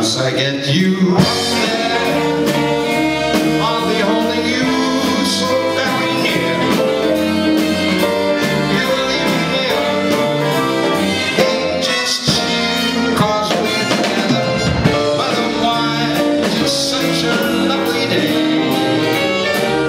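Live big band with saxophones and brass playing, with a male singer singing into a microphone over it.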